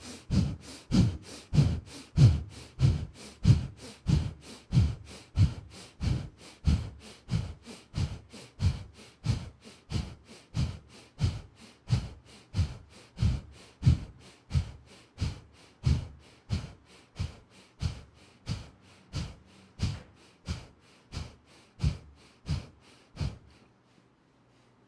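Kundalini yoga breath of fire: rapid, rhythmic breathing through the nose, each forceful exhale a short sharp puff, about one and a half a second. It stops about a second before the end.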